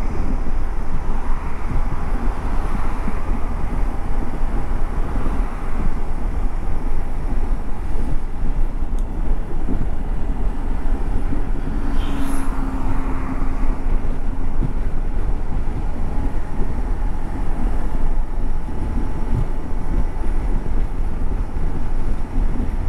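Wind rushing over the helmet microphone on a moving Hero Xpulse 200 single-cylinder motorcycle, with engine and road noise underneath. The sound is steady and loud, with a deep rumble.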